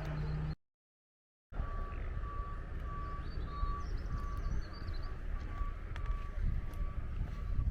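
A vehicle's reversing alarm beeping steadily, about two high beeps a second, over a low rumble. The sound cuts out completely for about a second near the start.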